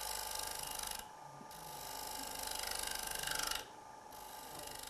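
Wood lathe running while the square high-speed-steel cutter of a Robert Sorby Turnmaster, set in the shear cutting position, takes a light finishing cut across the outside of a spinning wooden bowl. It makes a steady hiss of fine cutting over the lathe's hum, and the hiss drops away twice briefly.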